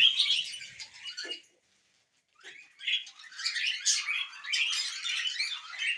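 Budgerigars chattering and warbling in quick high chirps. The chirping breaks off for about a second, a second and a half in, then starts again.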